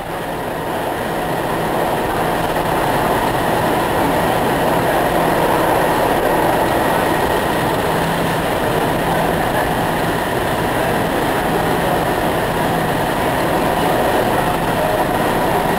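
A train passing: steady, loud rail noise that builds over the first couple of seconds and eases slightly near the end.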